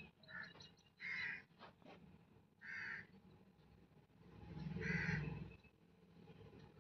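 A crow cawing about three times, roughly two seconds apart. A few light clicks of a metal spoon against the frying pan come in the first two seconds.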